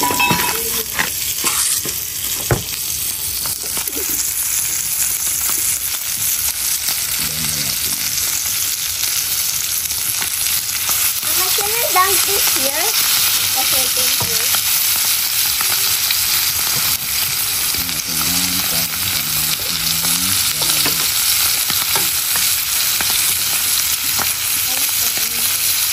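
Salt-and-pepper-seasoned beef steaks searing in a hot frying pan, a steady sizzle.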